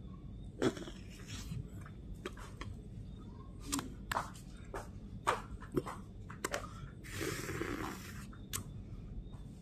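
Scattered sharp clicks and short rustles, with a longer rustle about seven seconds in, over a low steady hum: hands and shirt sleeves moving close to a phone's microphone.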